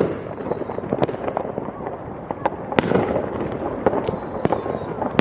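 Consumer fireworks going off all over a city: irregular sharp bangs and pops, about a dozen in five seconds and the loudest a little before the middle, over a constant wash of many more distant fireworks crackling and booming.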